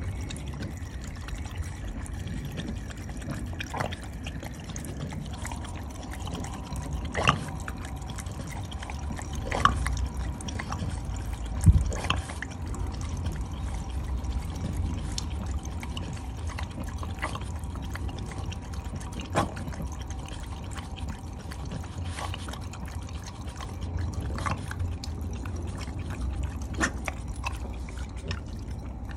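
A thin stream of water trickling from an outdoor tap while a French bulldog laps at it, with a short sharp splash every few seconds.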